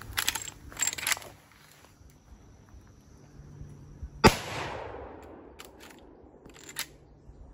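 Marlin 336 lever-action rifle: a few sharp metallic clacks as the lever is worked, then a single shot about four seconds in that rings out and fades. After the shot, a few more clacks as the lever is cycled again to eject the case and chamber the next round.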